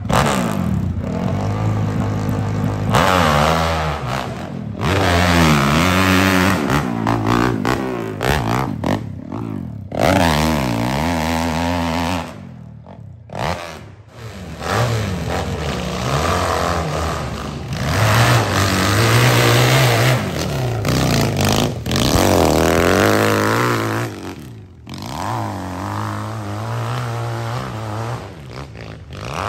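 Dirt bike engines revving hard on a hillclimb, the pitch sweeping up and down again and again under the throttle. The sound breaks off briefly about 13 seconds in, and another bike picks up.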